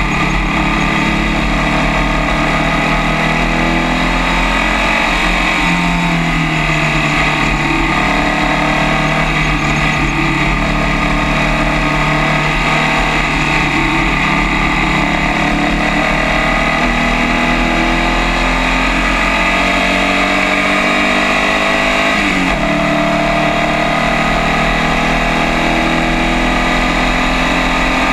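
Onboard sound of a Formula First race car's air-cooled Volkswagen 1600 flat-four engine under full throttle, its pitch climbing steadily. About 22 seconds in the pitch drops sharply as the car shifts up, then climbs again.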